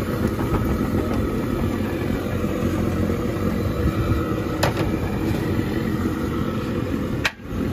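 Steady rumble of street traffic, with a single sharp click about two-thirds of the way through and a brief dropout near the end.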